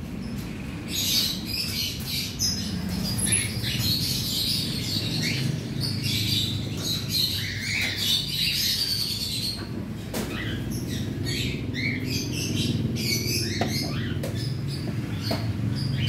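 A large aviary colony of cockatiels chattering and chirping non-stop, many short high calls overlapping, over a steady low hum.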